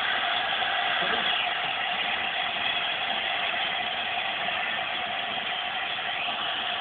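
LNER A4 streamlined steam locomotive standing with steam escaping: a steady, unbroken hiss.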